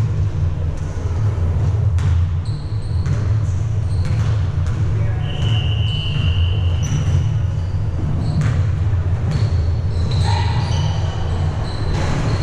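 Basketball game in a gym: a ball bouncing on the court in sharp knocks, sneakers squeaking in short high chirps, with a steady low hum underneath.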